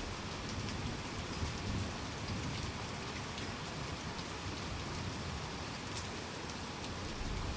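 Steady rainstorm, rain falling hard and pattering on surfaces, with a low rumble swelling for a second or so about a second and a half in and again near the end.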